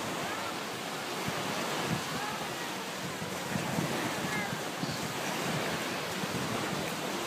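Surf washing steadily onto the shore, with wind buffeting the microphone.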